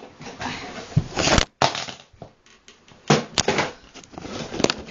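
Cardboard and plastic packaging of a toy truck box being handled and pulled open: rustling and crackling with sharp clicks and knocks, and a brief break about a second and a half in.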